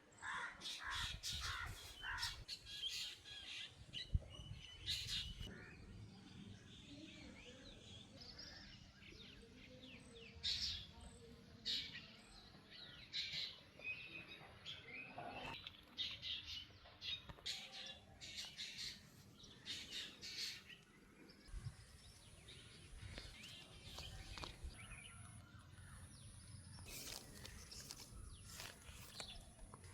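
Songbirds chirping and calling, many short chirps scattered throughout and busiest in the first few seconds and again near the end, over a faint low rumble of background noise.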